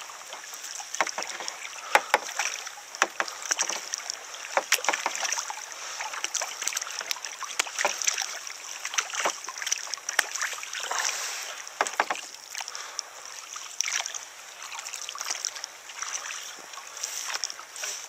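Tandem kayak paddling on calm water: double-bladed paddles dip and splash at irregular strokes, over a steady high hiss.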